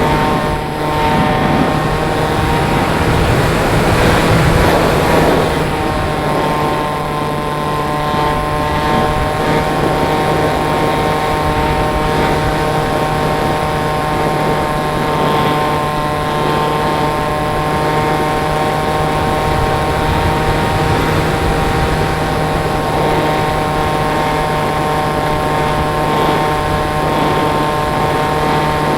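Pusher motor and propeller of a converted BMI 1800 mm RC glider running at a steady speed: a constant whine of several steady tones over wind rush. A louder surge of wind noise comes about three to five seconds in.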